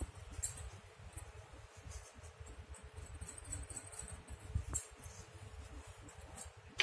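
Faint handling sounds over quiet room tone: a few soft taps and light clinks as small glass bowls of salt are handled over a steel plate of flour.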